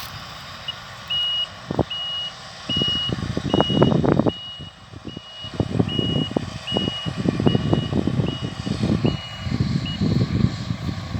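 A farm machine's reversing alarm beeping on one high tone, about thirteen beeps at roughly one every three-quarters of a second, stopping near the end. Underneath are a low machine rumble and uneven gusts of wind on the microphone.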